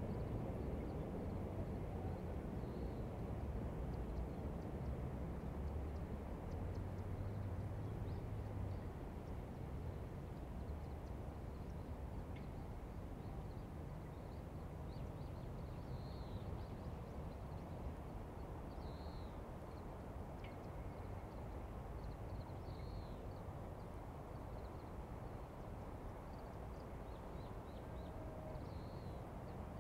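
Outdoor riverside ambience on a spring morning: a steady low rumble, heavier for the first nine seconds or so, with short high bird chirps every few seconds.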